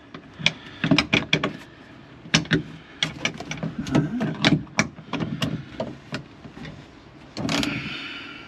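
Irregular metallic clicks and knocks from a hand wrench and a seat belt anchor bolt being worked in a car's interior, with a longer rasping sound near the end.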